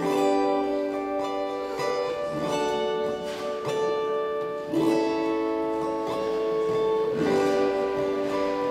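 Instrumental music starting suddenly out of silence: slow chords, a new one struck about every two and a half seconds and left to ring.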